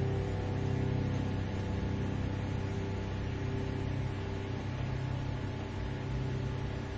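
Steady low rumble with hiss, like road traffic.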